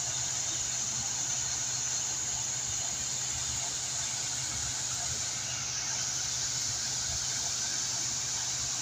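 Tiered stone fountain's water jets falling and splashing into its basins: a steady, even rush of water.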